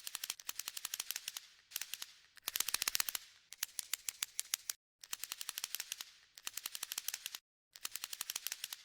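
Rapid runs of sharp clicks, about ten a second, each run lasting a second or so with short gaps between them.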